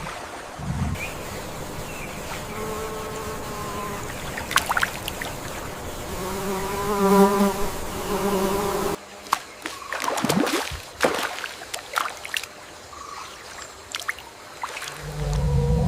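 Tropical forest ambience: an insect buzzing in two spells over a steady hiss, then, after an abrupt change about two-thirds of the way through, scattered animal calls and clicks.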